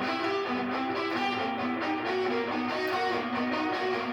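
Electric guitar playing a lick: a run of held notes stepping up and down in pitch, one after another, at an even level.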